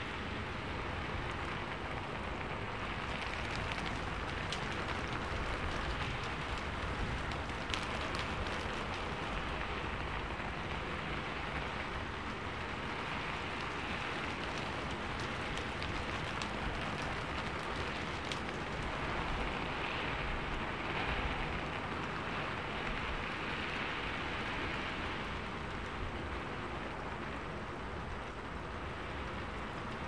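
Steady rain falling, with a low rumble underneath and now and then a sharper single drop ticking.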